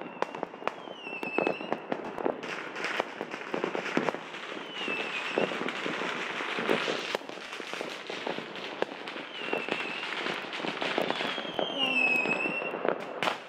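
Many fireworks bursting and crackling at once in a dense, continuous barrage of bangs. Several short whistles that dip and rise in pitch sound through it.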